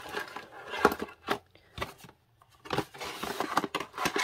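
Stationery being handled and unpacked from a card box: paper and card rustling, with several small taps as items are set down on the table.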